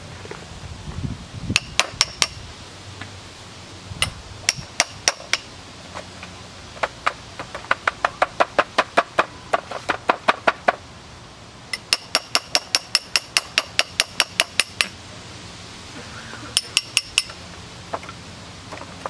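A small hammer striking a steel chisel to chip apart a plaster casting mold and free the aluminum castings, the chisel ringing with each blow. Short groups of four or five taps alternate with two long, fast runs of about five strikes a second.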